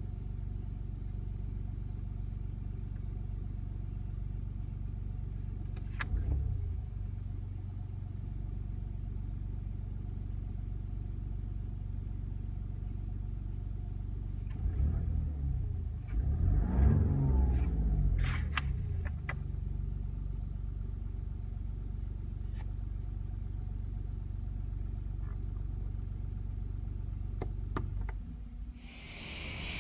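BMW 116d's 1.5-litre three-cylinder diesel engine idling, heard from inside the cabin. It is revved briefly about six seconds in, then revs up and back down over a few seconds near the middle. The engine sound cuts off shortly before the end.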